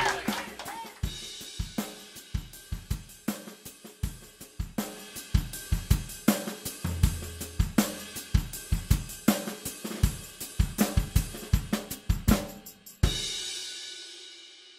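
Background music led by a drum kit playing a steady beat, with a loud cymbal crash near the end that rings out and fades away.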